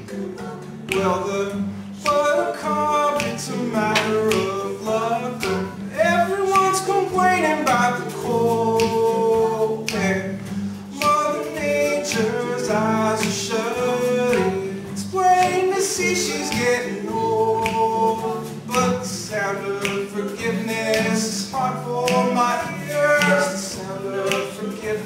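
Several voices singing a song together in harmony, over a steady clicking beat.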